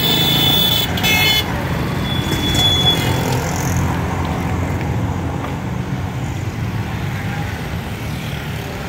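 Busy street traffic: a vehicle horn honks twice in the first second and a half, a long blast then a short one, over the steady low rumble of passing motorcycles, cars and auto-rickshaws.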